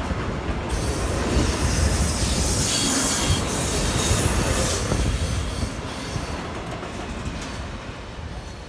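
A train passing on the rails, its running noise joined by a high wheel squeal in the middle, growing quieter over the last few seconds.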